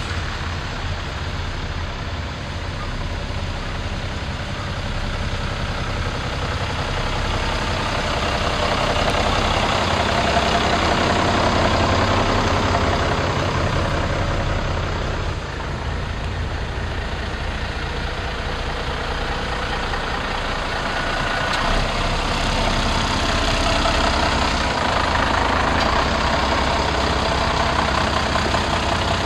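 Noto Railway NT100-series diesel railcar standing at the platform with its engine idling steadily.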